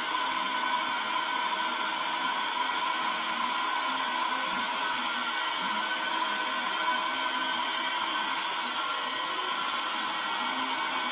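Handheld vacuum cleaner running steadily, a constant motor whine over a hiss, with its nozzle held against a cat's head and fur.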